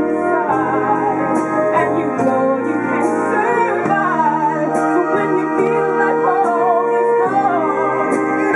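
A woman singing a ballad into a microphone, backed by a military concert band with keyboards and winds.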